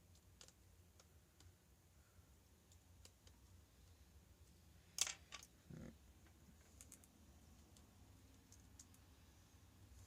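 Quiet, scattered clicks and taps of small tools and parts handled during a tablet teardown, with one sharper click about five seconds in and a duller knock right after, over a faint low hum.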